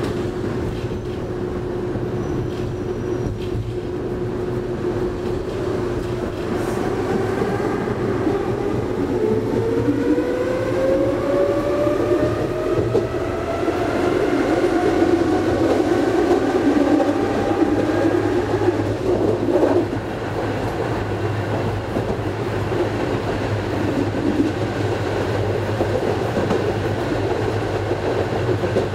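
Konstal 13N tram running, heard from inside the car. A whine from the motors and gearing rises steadily in pitch as the tram picks up speed, then stops suddenly about two-thirds of the way through, leaving the steady rolling noise of the wheels on the rails.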